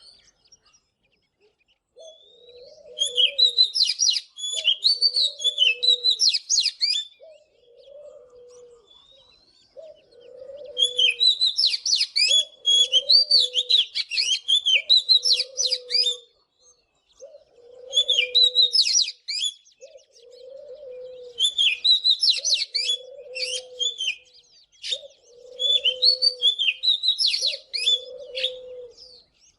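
Oriental magpie-robin singing in bursts of rapid, varied whistled phrases, each a few seconds long with short pauses between. A low call repeats about every second and a half beneath it.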